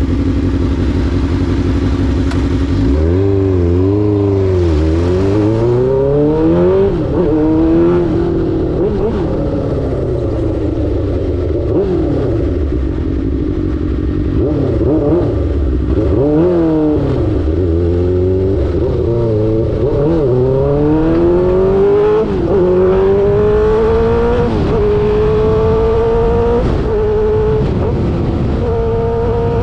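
Suzuki GSX-R600 K5's inline-four engine through an SC-Project exhaust, running steadily at first, then revving up through the gears. The pitch climbs and drops sharply again and again, as in quickshifted upshifts.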